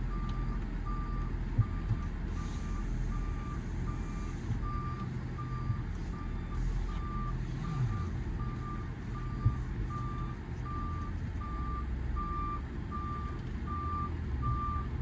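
Truck backup alarm beeping steadily, a little faster than once a second, as the truck reverses. Under it runs the steady low rumble of the 6.7 L Power Stroke V8 diesel.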